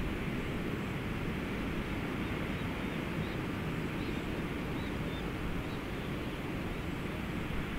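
Steady low rumbling background noise with no distinct events, and a few faint short high chirps about three to five seconds in.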